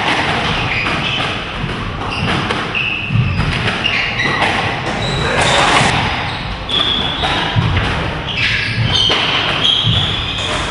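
Squash rally: the ball is struck by rackets and smacks off the court walls in a run of sharp thuds, with sports shoes squeaking briefly on the wooden floor several times.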